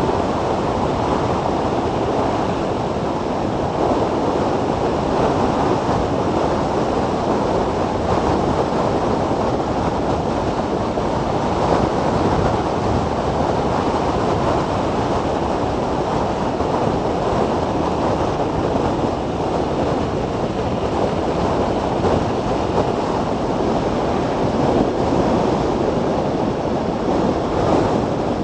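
Steady rush of wind buffeting the microphone of a camera mounted on a Zero DSR electric motorcycle riding at speed, with road noise beneath and no engine note.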